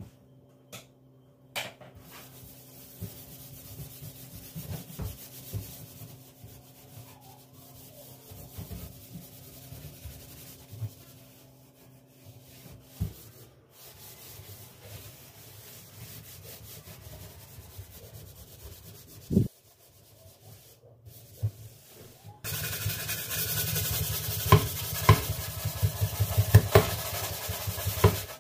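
Kitchen handwork: scratchy rubbing and scraping with scattered small knocks, one sharper knock about two-thirds of the way in. Near the end it gives way to a louder steady rush with quick clatter.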